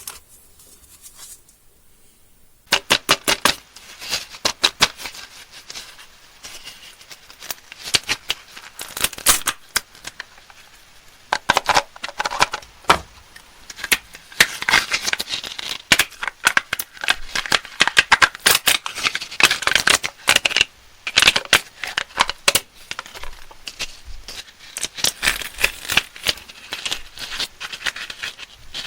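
Candy wrappers and packaging being crinkled and torn open by hand, a dense run of crisp crackles. It starts after a quiet couple of seconds and grows busier about halfway through.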